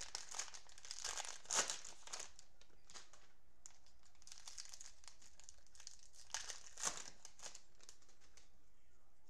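Plastic wrapper of a Panini Prizm football cello pack crinkling and tearing as it is handled and opened, in crackly bursts through the first seven seconds or so, loudest about a second and a half in.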